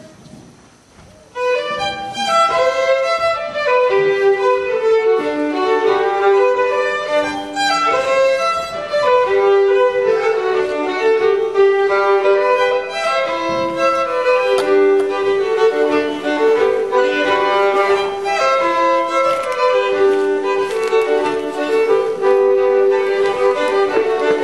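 Two fiddles playing a Norwegian reinlender in duet, a lively folk dance tune. The fiddles come in about a second and a half in after a short quiet.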